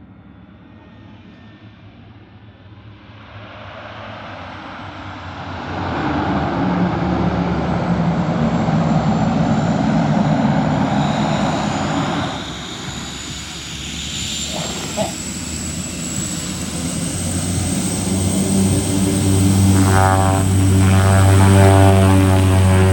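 A propeller-driven MAF light aircraft landing. Its engine noise grows louder over the first several seconds and drops briefly about halfway. A steady propeller hum then builds again and is loudest near the end.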